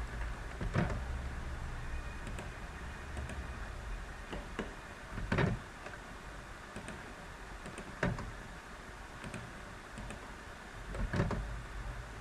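Scattered single clicks and taps from a computer mouse and keyboard, a handful of them spread irregularly, over a steady low hum and hiss.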